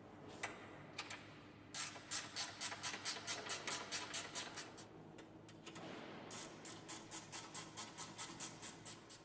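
Hand ratchet wrench clicking in two runs of evenly spaced clicks, about four a second, as a nut on the stabilizer bar link is tightened.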